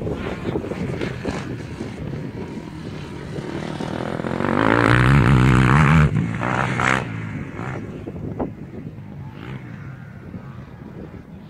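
Dirt bike engine revving as it rides by, growing to its loudest about five to six seconds in, then fading as the bike rides away.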